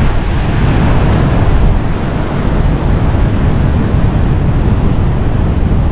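Wind buffeting the microphone: a loud, steady low rumble with hiss above it.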